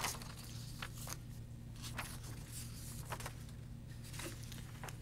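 Quiet room tone under the public-address microphone: a steady low electrical hum, with a handful of faint scattered clicks and rustles and a slightly louder tick right at the start.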